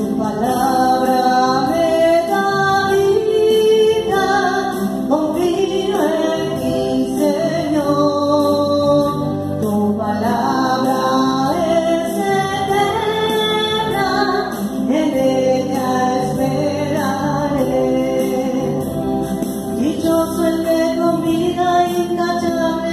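A slow religious song: a voice sings a gliding melody over held chords from an electronic keyboard, likely the opening of a sung responsorial psalm.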